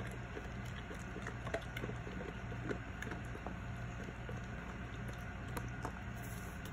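Great Pyrenees dog eating dry kibble off a tile floor: small irregular clicks and crunches as it picks up and chews the pieces, over a steady low hum.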